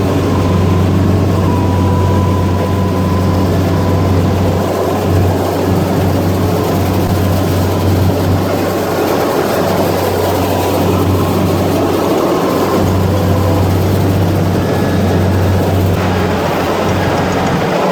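Rice combine harvester running steadily and loudly, its engine drone mixed with the noise of the threshing and grain-auger machinery.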